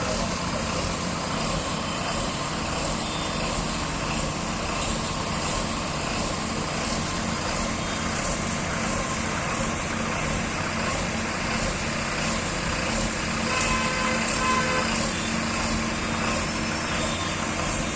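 Heavy road-construction machinery engine running steadily, with a slight rise in loudness about fourteen seconds in.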